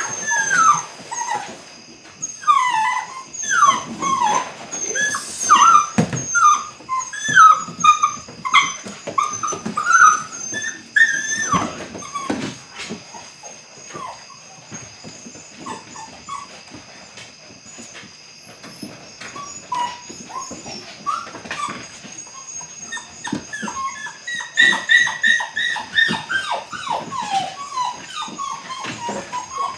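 Eight-week-old Belgian Malinois puppy whining and yipping in many short, high-pitched calls that bend up and down in pitch. The calls come thick at first, thin out in the middle, and pick up again near the end.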